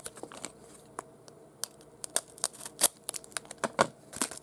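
Plastic wrapper of a trading card pack being torn open and crinkled by hand: scattered sharp crackles and clicks, sparse at first and coming thicker in the second half.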